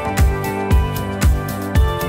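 Background music with a steady beat of about two thumps a second under held notes.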